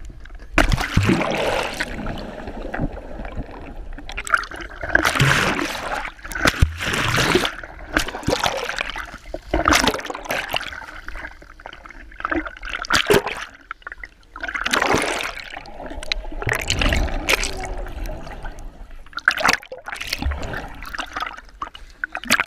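Pool water splashing and sloshing around a camera held on a pole in the water: a loud splash just after the start as a boy flips into the pool, then repeated irregular splashes and gurgles as he swims, the camera's microphone dipping in and out of the water.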